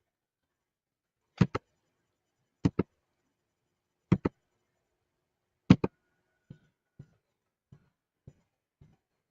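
Four sharp double clicks, about a second and a half apart, then a run of fainter, duller single taps about half a second apart.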